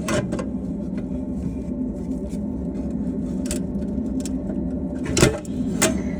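Sheet metal screws being bent and snapped off ductwork: a few sharp metallic clicks and snaps, one at the start and two about five and six seconds in, the first of these the loudest. A steady low hum runs underneath.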